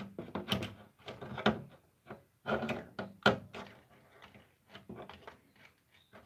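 Handling noise: a quick run of knocks and clatters, like hard objects being picked up and set down, thick for the first three seconds or so, then thinning to scattered taps.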